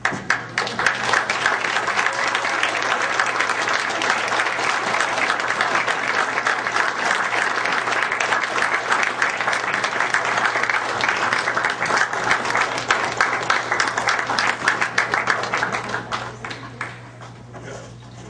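Audience applauding. It breaks out all at once and dies away over the last couple of seconds.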